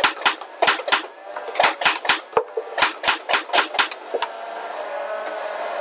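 Switch-adapted motorized Nerf blaster with a feeder motor and a flywheel launcher motor firing a fast, uneven string of about fifteen darts, each shot a sharp clack, over the steady whir of the motors. The shots stop about four seconds in while the motors keep whirring.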